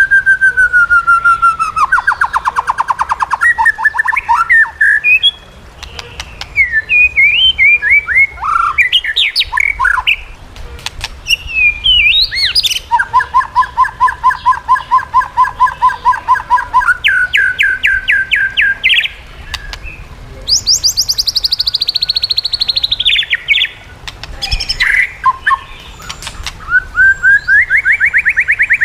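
White-rumped shama (murai batu) singing a long, varied song of whistled glides and fast rapid-fire trills, with a high falling sweep about two-thirds of the way through.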